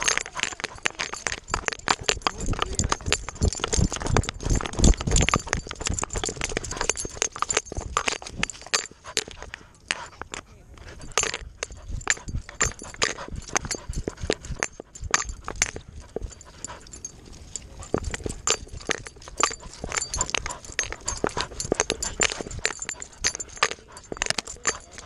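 A dog heard from a camera strapped to its own chest: rapid breathing with its mouth open, and a quick, uneven patter of paws and knocks as it moves over a dirt trail, briefly easing off a few times.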